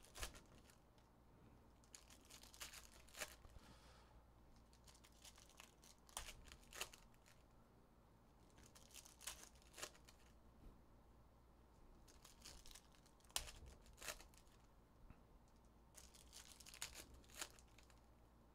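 Faint crinkling and tearing of foil Panini Select trading-card pack wrappers as packs are ripped open and handled, in scattered bursts every few seconds.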